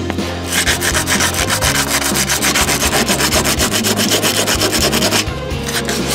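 Sandpaper rubbed by hand over the painted steel body of a car in quick back-and-forth strokes, scuffing the paint down to bare metal around a dent, with a short pause about five seconds in.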